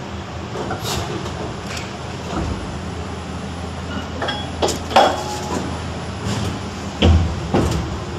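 Injection moulding machine running on a multi-cavity barrel-lid mould: a steady machine drone that deepens a little after a couple of seconds, with several sharp clanks and knocks, the loudest about five seconds and seven seconds in.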